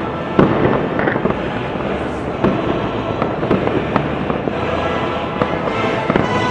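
Many fireworks going off at once: a dense crackle of bangs, with louder booms about half a second in, at about two and a half seconds and near the end.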